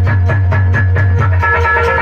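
Live Indian folk instrumental: a portable keyboard playing a melody over a low held bass note, with quick, even dholak drum strokes.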